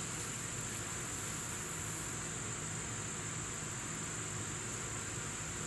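Steady, unbroken high-pitched chirring of crickets in an outdoor insect chorus.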